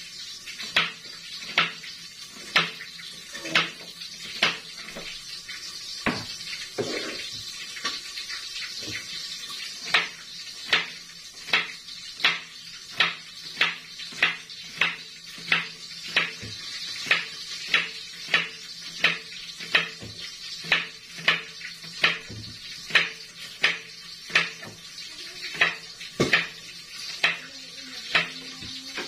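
Kitchen knife chopping vegetables on a plastic cutting board: a steady run of sharp knocks, a little more than one a second.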